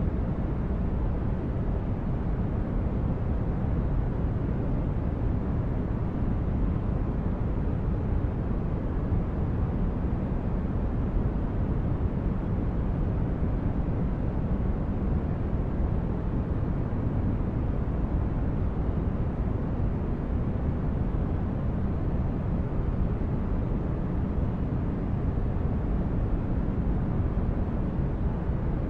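Steady, unbroken noise for sleep and relaxation, deep and rumbling, with most of its weight low and little hiss on top. It holds even throughout, with no changes or separate sounds.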